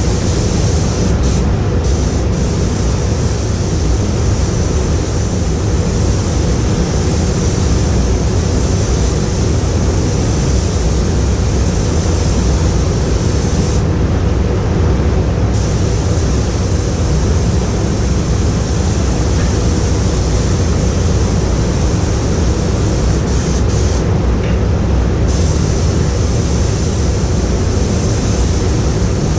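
Compressed-air hand gun hissing as it is worked along the car body, the hiss stopping briefly about a second in and twice more for a second or so as the trigger is let go, over the steady low rumble of the paint booth's ventilation fans.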